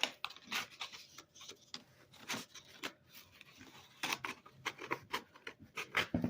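Irregular clicks and light knocks of a 50-grit sanding belt being fitted onto a belt sander by hand, with the sander switched off.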